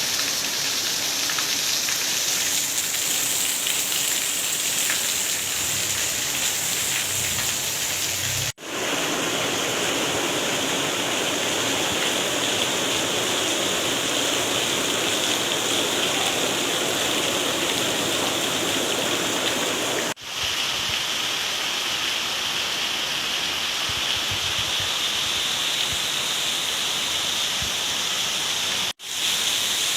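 Heavy tropical rain pouring down in a steady hiss, broken three times by a brief dropout.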